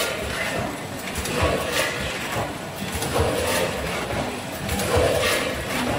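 Vertical form-fill-seal packing machine for chips running through its bagging cycle, a repeating mechanical clatter with clicks coming about every one and a half to two seconds.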